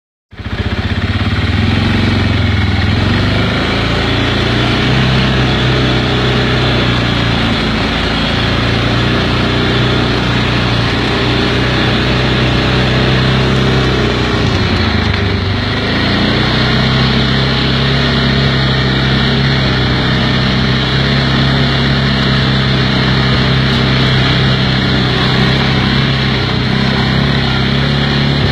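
Kymco MXU 500 quad's single-cylinder four-stroke engine running under way on a dirt track. The engine note rises and falls with the throttle, easing off briefly around eight seconds and again around fifteen seconds before picking back up.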